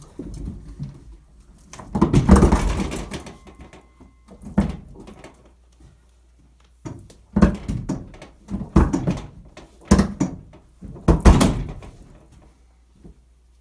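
750 lb Browning Pro Steel gun safe being hauled over golf balls on carpet: bursts of rumbling, knocking and thudding with each pull, about four of them a few seconds apart.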